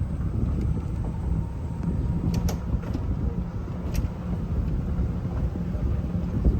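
Steady low rumble of wind buffeting the microphone, with a few faint clicks in the middle.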